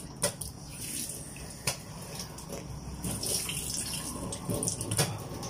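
Watery splashing and trickling, with a few sharp clicks, one of them loud near the end.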